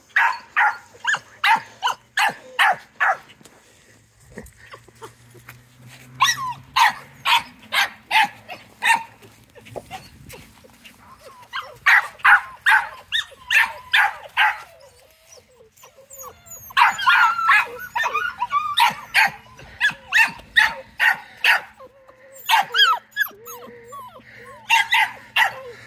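Nine-week-old puppy yapping in quick runs of high-pitched barks, about four a second, with short pauses between the runs.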